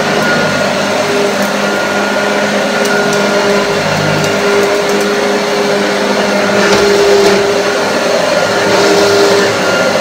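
A 1980 Hoover Junior U1036 upright vacuum cleaner running steadily as it is pushed over a rug: a motor hum with a steady pitched whine over the rush of air.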